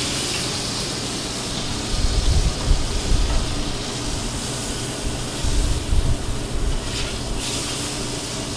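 A soy-sauce-washed steak searing in a very hot pan on a gas range: a steady hard sizzle and hiss, with flames flaring up in the pan. Low rumbling surges come about two seconds in and again past the middle.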